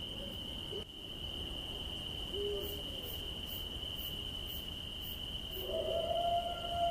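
Horror night ambience: steady insect chirring with faint high ticks about twice a second, and a brief low hoot about two seconds in. Near the end a long eerie tone swells and begins to slide down in pitch.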